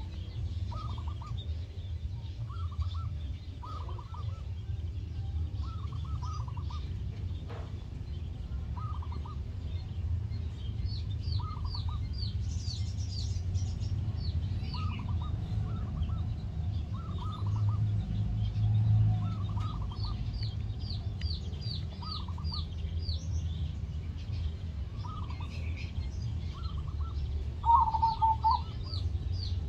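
Zebra doves cooing: short clusters of rapid staccato coos every second or two, with a louder coo near the end. Quick runs of high chirps from other small birds overlap them, over a steady low rumble.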